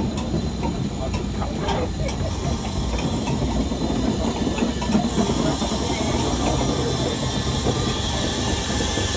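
Steam locomotive at close range: a steady low rumble with steam hissing. The hiss grows louder about halfway through, and there are a few light clicks in the first two seconds.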